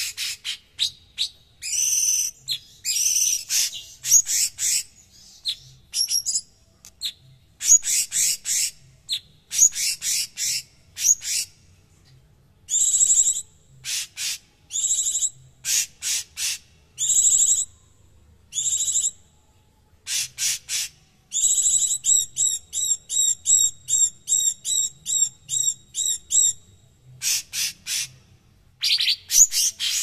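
Caged cucak cungkok, a leafbird, singing in a rough, dense string of harsh chattering calls and whistled notes. About two-thirds of the way in it breaks into a fast run of evenly repeated notes, about three a second.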